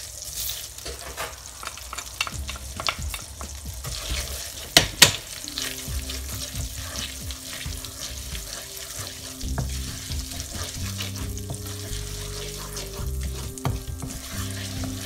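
Cumin, cardamom, curry leaves and lentils sizzling in hot melted butter in a nonstick pan, stirred with a wooden spatula. Two sharp knocks sound close together about five seconds in.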